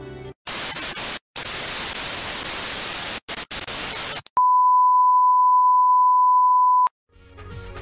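Television static hiss, cutting out briefly a few times, followed by a loud, steady single-pitch test-pattern tone of the kind played over colour bars, held for about two and a half seconds and stopping abruptly.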